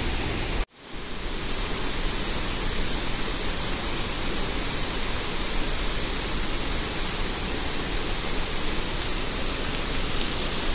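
Steady rush of a fast mountain river, an even roar of water with no let-up. It drops out for an instant under a second in.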